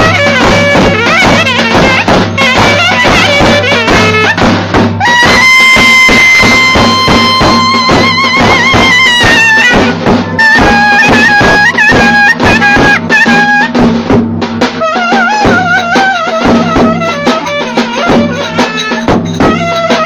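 Clarinet playing a fast, ornamented folk melody, with a long held note about five seconds in, over steady drum beats.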